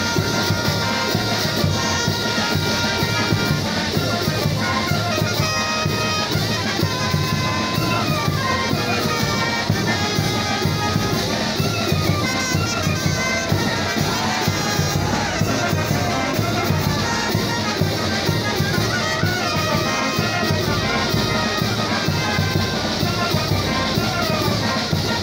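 Children's and youth Oaxacan brass band playing a traditional son/jarabe dance tune, with trumpets and trombones carrying a lively melody over a steady beat.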